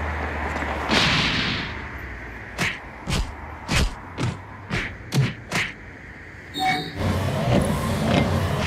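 A run of about seven sharp hand slaps, roughly two a second, as two people trade a choreographed slapping handshake. A whoosh of noise comes about a second in.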